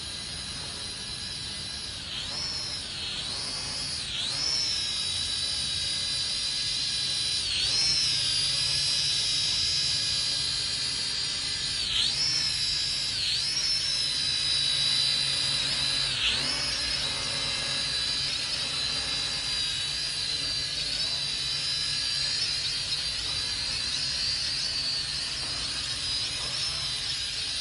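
Toy quadcopter drone's small electric motors and propellers whining steadily at a high pitch. The pitch dips sharply and comes back up several times as the motor speed changes.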